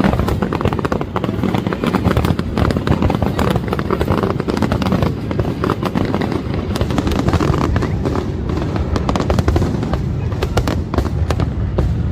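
Loud, dense crackling and popping that goes on without a break, with music underneath.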